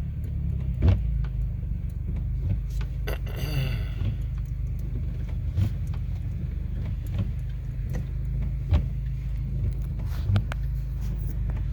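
Steady low hum of a 2005 Scion tC's 2.4-litre four-cylinder running, heard from inside the cabin, with a few scattered light clicks and knocks.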